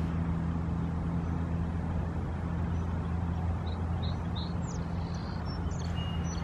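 A steady low engine hum, like a vehicle idling nearby. A few short, high bird chirps come in over it from about halfway through.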